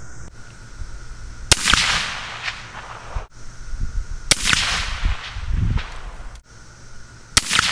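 Three suppressed rifle shots, about three seconds apart, from a .22-243 bolt-action rifle fitted with a Delta P Brevis suppressor rated for .338 Lapua. Each is a sharp crack with a short echo trailing after it.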